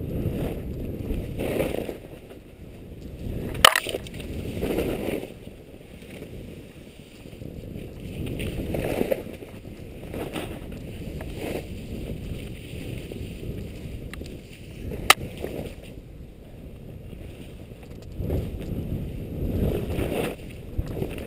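Skis sliding over snow with wind rumbling on the microphone, the rushing noise swelling and easing several times. Two sharp clicks cut through, one about four seconds in and one about fifteen seconds in.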